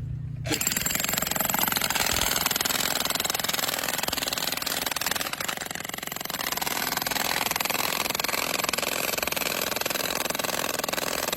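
Jackhammer breaking into shale, a dense rapid hammering that starts about half a second in and keeps going steadily.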